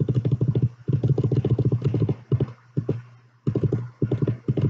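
Rapid tapping and clicking on a computer keyboard, several strokes a second in runs with brief pauses, as presentation slides are skipped through.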